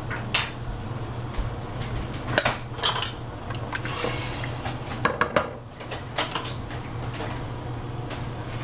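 Wooden spoon stirring soup in a stainless steel stockpot, with a scatter of knocks and clinks against the pot's sides and a brief swish of broth about four seconds in, over a steady low hum.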